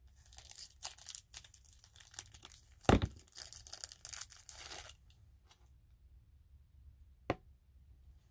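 Craft-kit packaging being handled and unwrapped: crinkling, rustling and tearing for about five seconds, with one sharp knock about three seconds in, then mostly quiet apart from a single click near the end.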